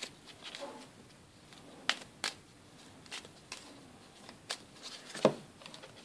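A deck of playing cards shuffled by hand: a scatter of soft clicks and taps, a few at a time, as the cards are handled.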